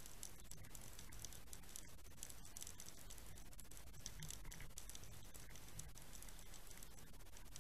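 Faint, steady underwater crackle: a dense run of fine clicks over a low hiss and rumble, picked up through the waterproof housing of an underwater fishing camera.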